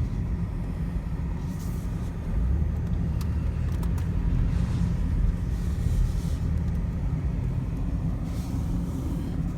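Minivan running on the road: a steady low engine and road rumble, with a few faint swells of hiss.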